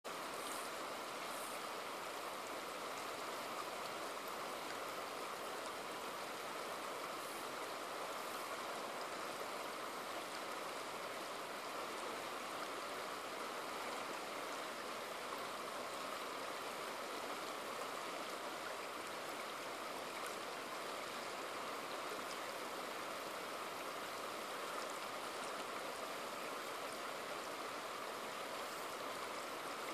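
Shallow river running fast over and around rounded boulders close by: a steady, even rush of water.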